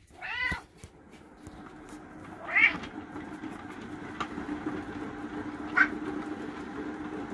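Bengal cat meowing: one longer meow at the start, then short, sharp meows about two and a half and six seconds in. Under them a steady low rumble builds as the cat exercise wheel turns beneath the walking cat.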